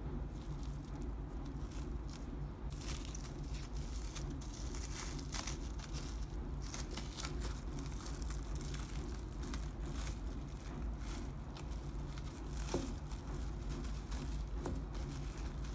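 Plastic cling film crinkling and crackling as it is peeled off logs of chilled cookie dough, in many small irregular crackles, over a steady low hum.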